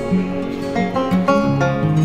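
Background music: an acoustic guitar picking a melody, one plucked note after another.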